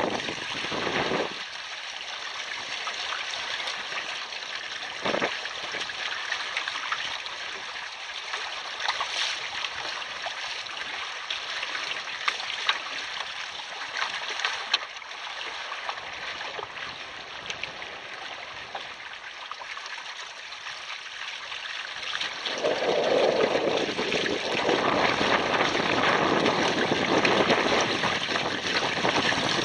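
Water rushing and trickling along the hulls of a double canoe under sail, a steady hiss that grows louder and fuller about three-quarters of the way through.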